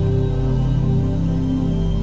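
Slow new-age background music of held, layered low tones.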